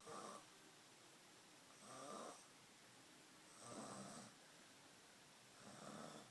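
Faint snoring: four snores in a steady rhythm, about two seconds apart.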